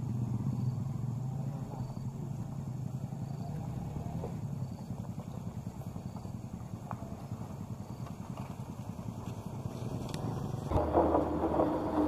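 A 4x4 vehicle's engine running steadily at low revs, its low hum easing off after the first few seconds. Near the end a louder, different noise starts abruptly.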